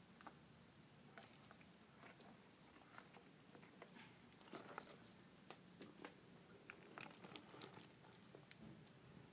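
Near silence with faint, irregular clicks and scrapes of gravel pebbles shifting as a small turtle scrambles and is picked up off the gravel by hand, a little busier in the second half.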